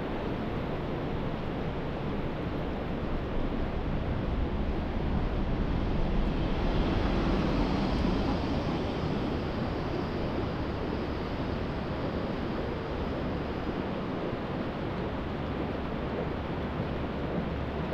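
A bus passing close by, its sound swelling about five seconds in and fading away a few seconds later, over a steady rushing background noise.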